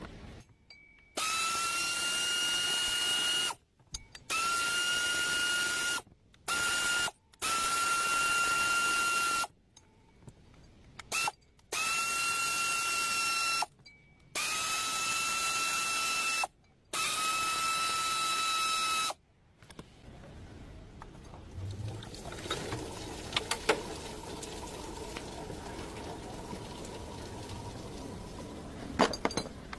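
A power tool run in seven short bursts of one to two seconds, its whine rising briefly at each start and then holding steady, as when driving or backing out bolts. After that, quieter working noise with a few clicks.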